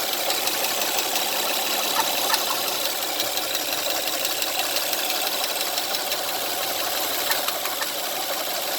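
2009 Honda Pilot's 3.5-litre V6 engine running with a loud, steady ticking, a noise that has been getting louder each day.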